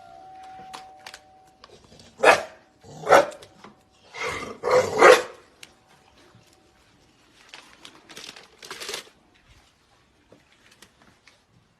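A dog barking in a few short loud bursts, then fainter barks later on.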